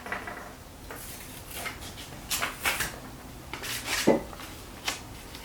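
A handful of light knocks and clatters of small objects being handled and set down, the loudest a little after four seconds in, over a faint steady background hiss.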